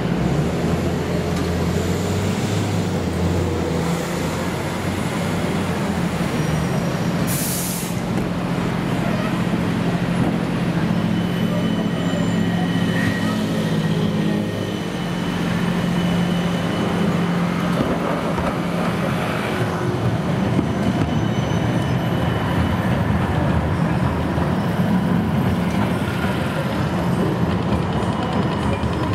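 Siemens Combino low-floor tram running slowly past close by on street track, a steady low hum of motors and wheels on rail. A brief hiss about seven seconds in.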